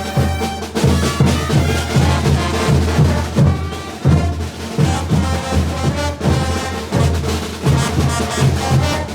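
Bolivian brass band playing caporales: brass melody over a heavy bass line and drums with a steady beat.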